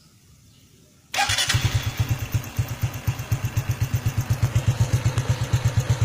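Honda Wave 110i's single-cylinder four-stroke engine, breathing through a stock-size O Ratchaburi aftermarket exhaust, starts about a second in and settles straight into an even idle of about eight exhaust pulses a second, with a soft exhaust note.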